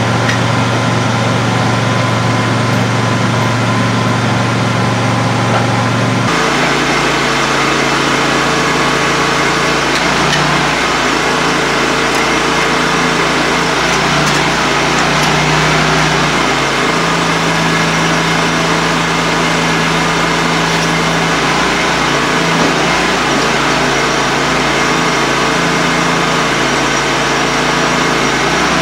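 A Kubota tractor's diesel engine idles with a steady hum. About six seconds in the sound cuts abruptly to a Timberking 1600 bandsaw sawmill running, its engine working under load with a wavering pitch and a hiss while the band blade cuts boards from an oak log.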